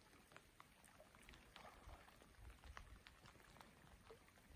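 Near silence, with faint scattered crackles and clicks and a few soft low rumbles.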